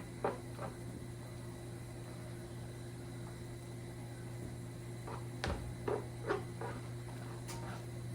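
Steady low hum of kitchen background, with a few scattered clinks and knocks of cookware and utensils, most of them between five and seven and a half seconds in.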